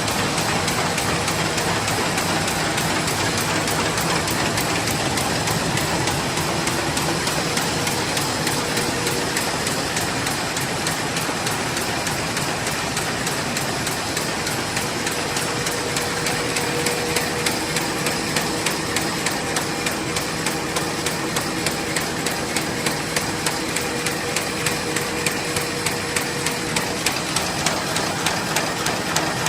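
Fully automatic paper bag machine running at high production speed: a steady mechanical clatter of rapid, regular clicks. A little past halfway, evenly spaced louder knocks come in and repeat to the end.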